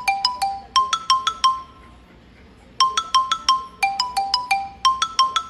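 Background music: a bright melody of short, ringing mallet-like notes played in quick runs, with a brief pause about two seconds in.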